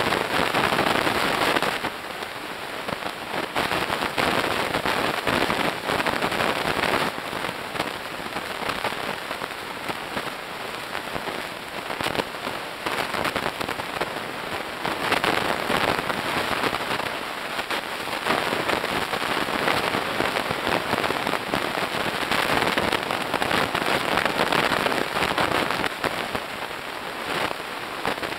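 Underwater crackling of snapping shrimp on a coral reef: a dense, steady mass of tiny pops like frying fat, swelling louder now and then.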